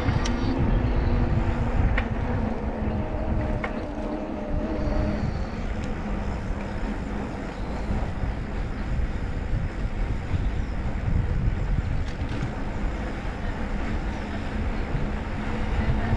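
Steady low rumble of wind buffeting the microphone and tyre noise from a bicycle rolling along tarmac. A faint humming tone sits over it for the first few seconds.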